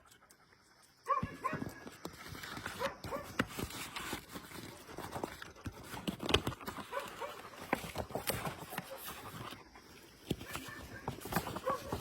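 A dog whining and yipping in short calls, mixed with clicks and knocks. It starts suddenly about a second in, after near silence.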